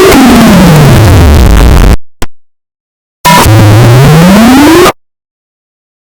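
Very loud, clipping synthesized tone gliding down in pitch for about two seconds, then cut off dead; after about a second of silence and a click, a second tone glides upward for under two seconds and cuts off again. This is deliberately overdriven 'earrape' meme audio.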